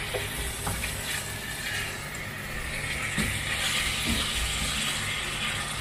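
Minced beef and chopped onion sizzling in a stainless steel frying pan while a plastic spatula scrapes and breaks up the meat, with a few short clicks of the spatula against the pan.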